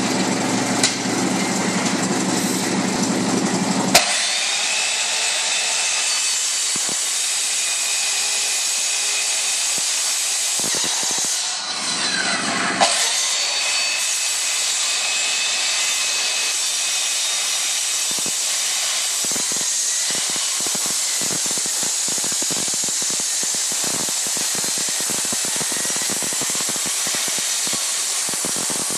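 Evolution power saw cutting through the riveted sheet-metal side panel of a box truck: a loud, steady, high-pitched cutting noise. It dips briefly and picks back up about twelve seconds in.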